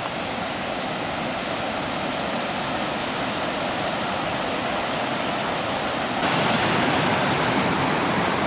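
Steady rushing of water falling and running over the river's waterfalls. It gets abruptly louder about six seconds in.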